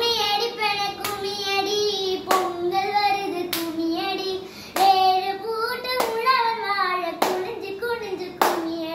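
A young girl singing a slow tune in long held notes, with a sharp hand clap about every second and a quarter keeping the beat.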